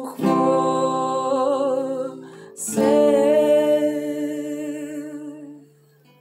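Acoustic guitar strumming two chords about two and a half seconds apart, each left to ring, under a wordless vocal line with vibrato. These are the song's final chords, and the last one fades out near the end.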